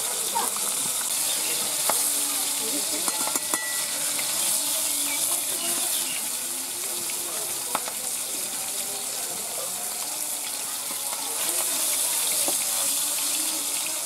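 Fish pieces sizzling as they fry in hot oil in an iron kadai: a steady hiss, with a few light clicks.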